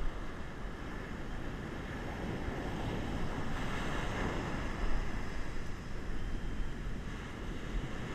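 Heavy surf washing up the beach, with wind buffeting the microphone in a steady low rumble; the wash swells louder about three to five seconds in.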